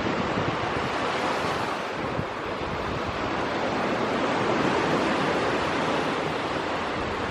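Steady, even rushing noise with no distinct events or pitch.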